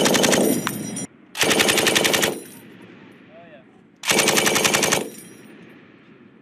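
Machine gun firing in short bursts, each a rapid string of shots lasting about a second: one burst is already under way and stops about a second in, and two more follow, the last near the two-thirds point.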